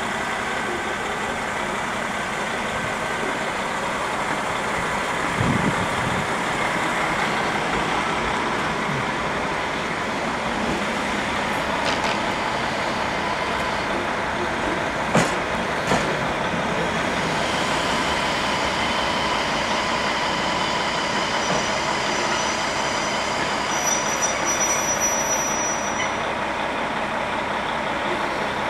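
Diesel railcar engine running steadily in a station, with two sharp clanks about halfway through.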